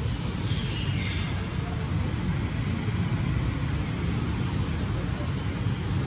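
Steady low rumbling background noise, with a few faint high chirps about a second in.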